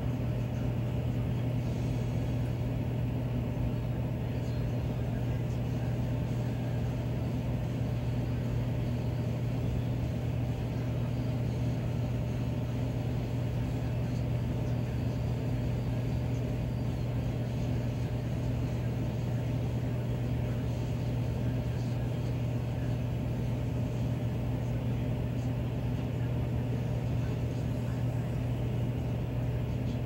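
Miller E2 electric furnace running in cooling mode, its blower moving air: a steady low hum over an even rush of air, unchanging throughout.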